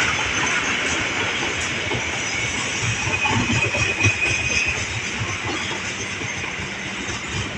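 Train passing, its wheels running and clattering over the rails, with a thin high wheel squeal from about three seconds in to nearly five seconds; the noise slowly fades.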